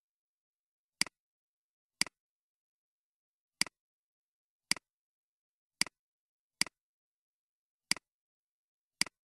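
Computer mouse button clicking eight times at uneven intervals of about a second, each click a quick double tick of press and release, with dead silence between.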